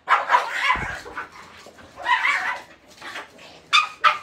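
Two small long-haired dogs barking at each other in a squabble, in three short bursts.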